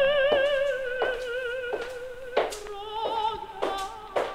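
Operatic soprano singing in the film's score, long held notes with a wide vibrato. The line sinks slowly, then leaps to a higher note about three seconds in. Sharp clicks fall roughly every two-thirds of a second.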